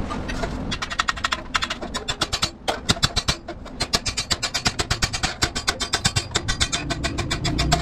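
A small hand hammer tapping rapidly on a shiny sheet-steel tube, several sharp metallic strikes a second. The strikes start about a second in and pause briefly near the middle. A steady low rumble runs underneath.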